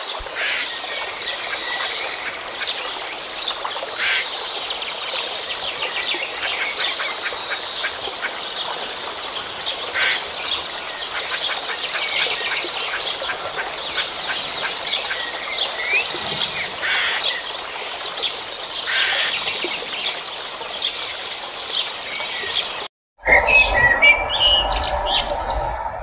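Many birds chirping and chattering in a dense, continuous chorus of high calls, cut off abruptly about 23 seconds in. Then a common blackbird sings over a low steady hum.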